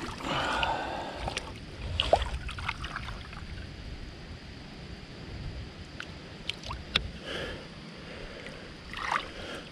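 Water sloshing and splashing, with a few sharp knocks, the loudest about two seconds in and about seven seconds in.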